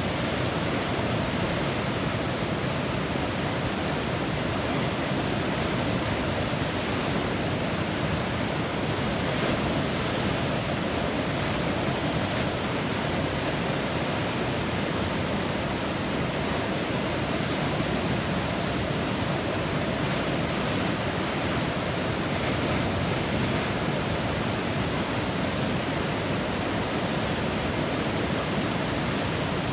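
Steady rush of big river whitewater rapids breaking around a standing wave.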